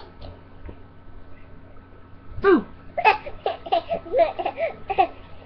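Baby laughing: a high squeal that falls in pitch about halfway in, then a quick run of short, high-pitched giggles.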